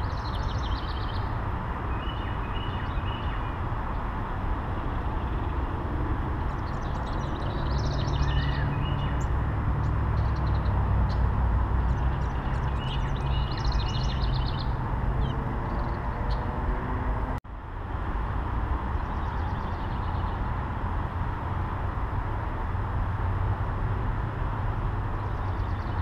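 Songbirds singing in short bursts of repeated phrases, three times, over a steady low rumble; the whole sound cuts out for an instant about two-thirds of the way through.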